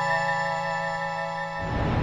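Background film music holding one sustained chord, which gives way near the end to a steady rushing noise.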